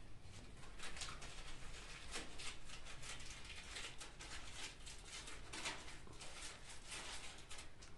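Party garland rustling and crinkling as it is handled and pressed against a wall, a run of short irregular rustles.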